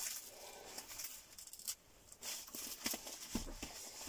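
Rustling and a few light knocks and taps of gear being handled, as a packed camp bed is taken out and unpacked.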